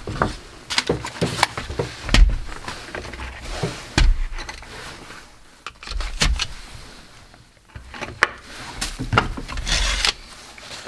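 Small parts being handled on a workbench: scattered clicks and knocks with a few dull thumps and some rubbing and scraping.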